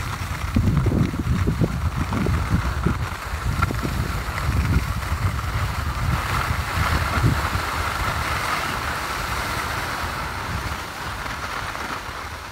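Wind buffeting the microphone in uneven gusts as the person filming moves downhill on skis, over a steady hiss of skis sliding on packed snow that eases a little near the end.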